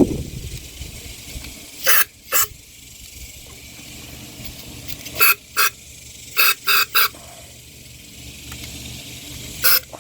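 Short squirts of aerosol carburetor cleaner sprayed into a small engine's carburetor intake, about eight brief hissing bursts in groups of two or three.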